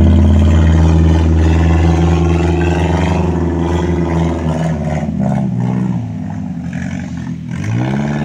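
Off-road 4x4's engine labouring as it crawls up a slippery mud climb, its pitch rising and falling with the throttle, with a few knocks and clatters from the vehicle. It fades as the vehicle pulls away.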